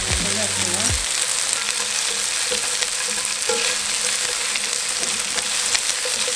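Sliced onion and green onion sizzling in oil in a frying pan, with a steady hiss, while wooden chopsticks stir them and tap and scrape the pan now and then.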